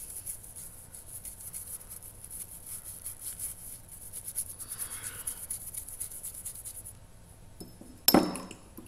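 Toothbrush scrubbing baking-soda paste over a rusty steel knife blade in small quick circles, a rapid scratchy rubbing that stops about seven seconds in to take off the rust. A sharp knock follows near the end.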